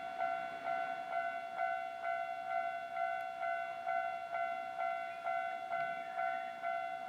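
Japanese railway level crossing warning bell ringing in even, repeated strokes about twice a second, the signal that a train is approaching and the crossing is closed.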